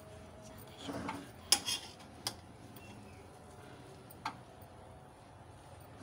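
Metal spatula stirring cooked rice and lentils in a metal pot: a short scraping rustle, then a few sharp clinks of the spatula against the pot, the loudest about a second and a half in.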